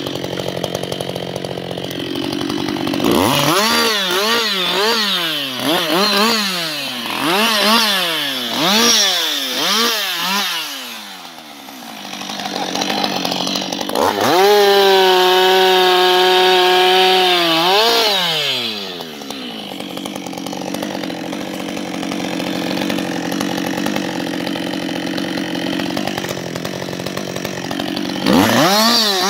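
Husqvarna 560 XP two-stroke chainsaw idling, then revved in about eight quick throttle blips, each rising and falling in pitch. It is then held at high revs for about four seconds, drops back to a steady idle, and is blipped again near the end.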